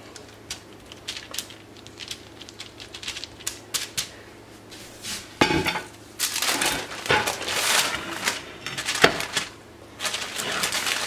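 Parchment paper rustling and crinkling as a pizza crust is shifted on it. There are light scattered clicks at first, then a sharp knock about five seconds in and another near the end, as a metal pizza pan is set against the counter.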